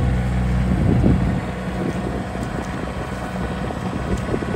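Compact tractor engine running steadily as the tractor drives slowly over a snowy gravel driveway; the engine note is strongest for the first second and a half, then eases off.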